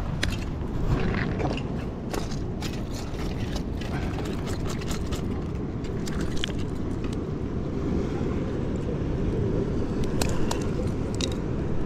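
Steady low rumble of wind and surf on the microphone, with scattered light clicks and taps as the metal jig and its assist hooks are worked free of a bonito's mouth.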